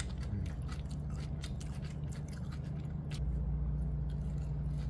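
Raw napa cabbage leaves dipped in ranch being bitten and chewed: a quick, irregular run of wet crunches over a steady low hum.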